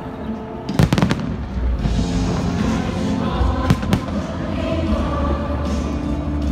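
Fireworks shells bursting with sharp bangs, a cluster about a second in and two more near four seconds, over music playing throughout.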